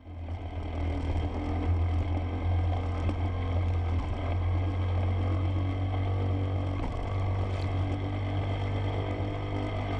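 A small boat's outboard motor running steadily under way, with the rush and splash of water as the hull and side float throw spray through choppy sea.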